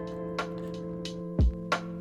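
Background music: sustained chords with a drum beat, a deep kick about one and a half seconds in and lighter percussion hits.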